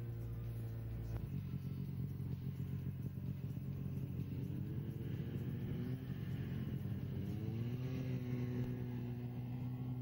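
Snowmobile engine running steadily. Its pitch rises twice, about halfway through and again near the end, as it speeds up.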